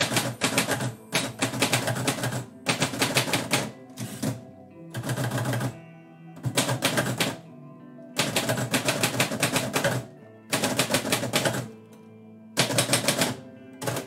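Manual typewriter being typed on: bursts of rapid keystrokes, each about a second long, with short pauses between them. Background music plays softly underneath.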